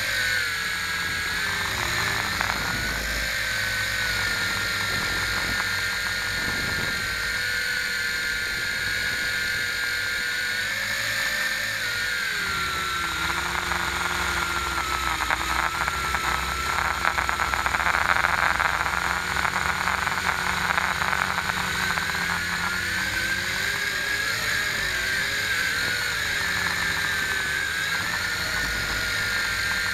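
Multirotor drone's electric motors and propellers heard from its onboard camera: a steady whine whose pitch steps down about twelve seconds in and then wavers up and down, with a louder rushing stretch a little past halfway.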